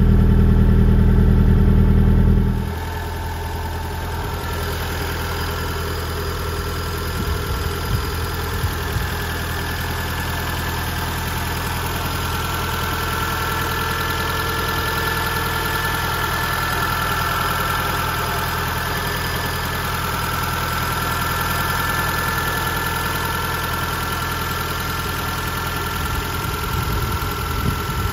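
Nissan CA20E four-cylinder engine of a TD2000 roadster idling steadily. For the first two and a half seconds it is heard close at the exhaust tailpipe, loud and deep. It then drops to a steadier, lighter engine-bay sound.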